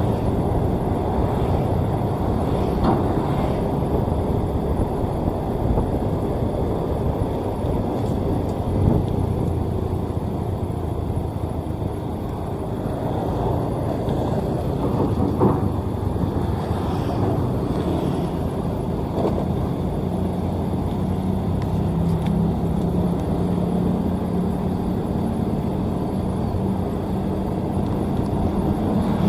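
Sakai asphalt paver's diesel engine running steadily as the machine travels, a low rumble with a steadier hum coming through in the last third.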